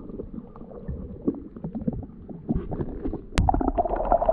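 Underwater sound of a knife digging into a sandy seagrass seabed: muffled knocks and scrapes over a low water rumble. A sharp knock about three and a half seconds in, then louder, steady rushing and scraping as the sand is worked to pull out a peanut worm.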